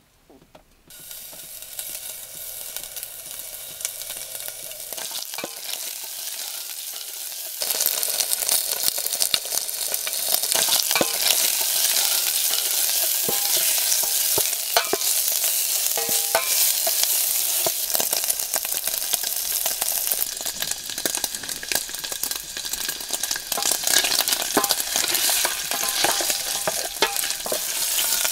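Food sizzling as it fries in a small saucepan, stirred with a wooden spatula that scrapes and clicks against the pan. The sizzle starts about a second in and gets louder at about eight seconds.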